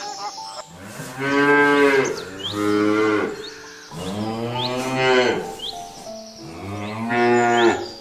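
Domestic cow mooing about four times, in long, low calls.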